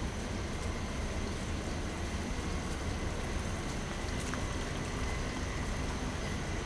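Steady background noise: a low rumble under an even hiss, with a faint high whine, and a small click about four seconds in.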